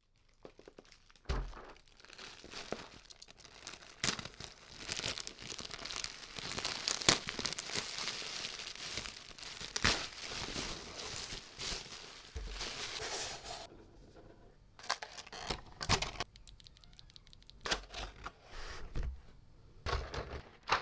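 Plastic packaging being handled and torn open: crinkling and tearing with sharp clicks mixed in, giving way about fourteen seconds in to sparser separate clicks and knocks.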